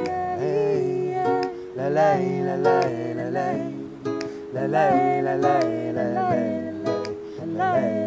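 Acoustic guitar strumming a song accompaniment, with a wavering, wordless melody line over it.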